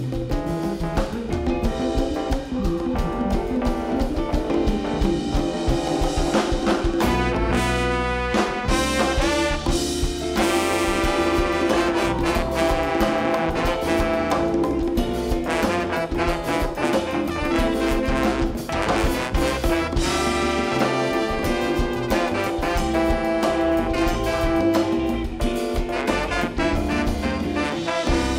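Live band with a horn section of trumpet, saxophone and trombone playing over drum kit, electric guitar, bass and keys.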